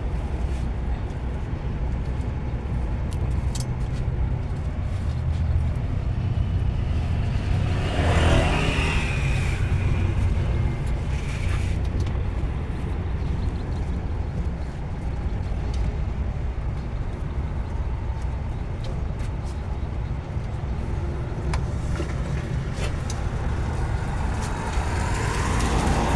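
A vehicle engine running steadily with a low rumble, with a few sharp clicks and a brief swell of louder noise partway through.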